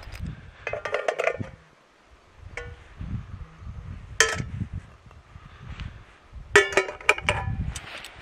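Metal camping cookware clinking and knocking as a pan and utensils are handled at the stove: short ringing metallic knocks about a second in, once around four seconds, and a quick cluster near the end, the loudest of them.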